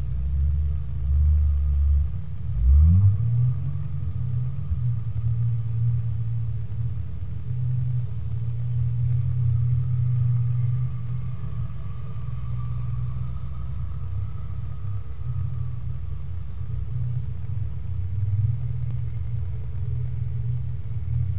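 Off-road 4x4's engine running under load, revving up quickly about three seconds in and then holding steady higher revs.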